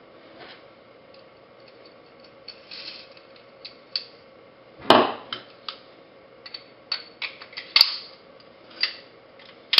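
Scattered clicks and knocks of a 1911 pistol's metal parts being handled and fitted together during reassembly: slide, recoil spring and guide rod. A louder clack comes about halfway and another near the end.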